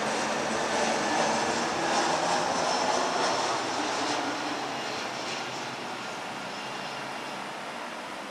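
Airbus A319 airliner's jet engines passing overhead on landing approach: a steady rushing jet noise with a faint high whine. It is loudest in the first few seconds and then fades as the aircraft moves away toward the runway.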